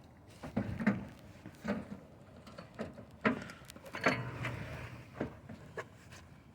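Irregular knocks and clatter of metal parts and tools being handled, about ten separate strikes, with a longer rattle about four seconds in.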